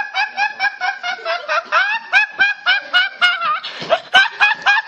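A young man laughing in rapid, high-pitched, even bursts, about four a second, with a short gasping breath about four seconds in.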